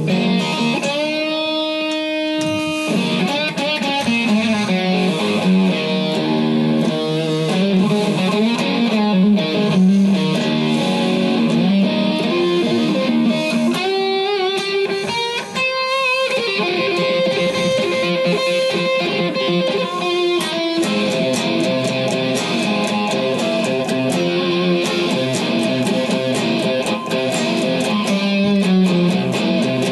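Electric guitar playing a passage of held notes and chords, with wide vibrato on sustained notes about two seconds in and again around fourteen to sixteen seconds.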